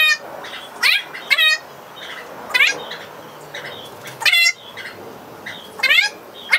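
About seven short animal cries, each rising sharply in pitch, some coming in quick pairs.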